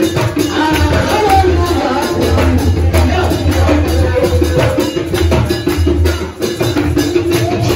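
Congregational praise music: a crowd singing together over drums and shaker-type percussion, with hand clapping.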